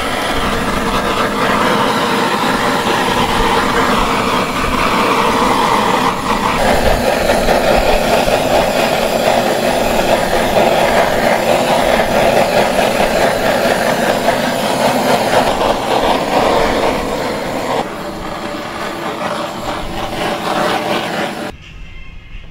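Handheld gas torch on an LPG cartridge burning with a loud, steady rushing hiss as it singes the skin of a goat leg. Its tone shifts about six seconds in, it gets quieter a few seconds before the end, then it cuts off abruptly.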